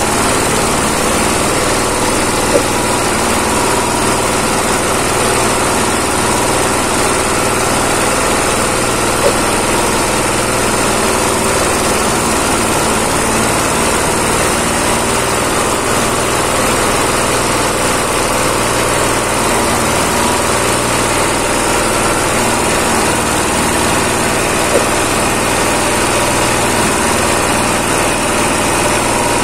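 Straw and husk grinding mill (hammer-type milling machine) running steadily while dry straw and stalks are fed into its hopper and milled to fine powder for livestock feed. Three brief sharp knocks stand out over the steady running.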